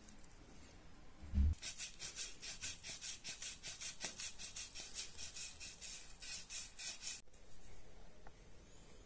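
A thump, then a metal file rasping back and forth inside a drilled hole in a pine board, about four quick strokes a second, enlarging and smoothing the hole, stopping abruptly about seven seconds in.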